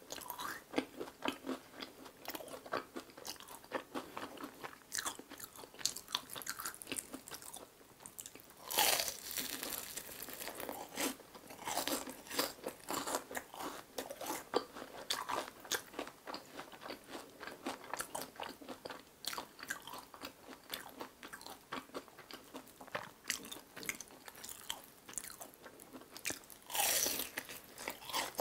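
Crunching and chewing of deep-fried menbosha, bread-and-shrimp toast with a crisp fried crust, as it is bitten and eaten. There are two louder crunchy bites, one about nine seconds in and one near the end.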